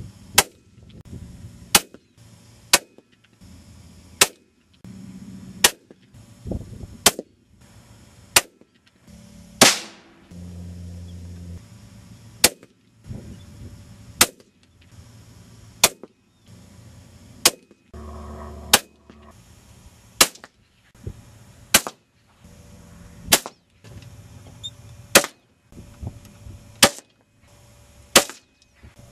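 A quick series of sharp .17 HMR rimfire rifle shots from a Ruger 77/17 bolt-action rifle, about two dozen cracks, each roughly a second or less apart. A couple of brief low hums come between the shots, one about ten seconds in and one about eighteen seconds in.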